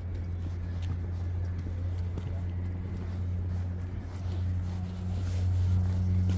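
A steady low engine hum, as of a motor vehicle running close by, growing a little louder about five seconds in.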